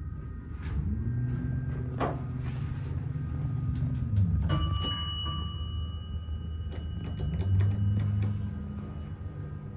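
Elevator door operator motor humming as the car doors slide, winding up about a second in and winding down at about four seconds. An elevator chime then rings and fades. A few button clicks follow, and the door motor starts up again near the end as the doors close.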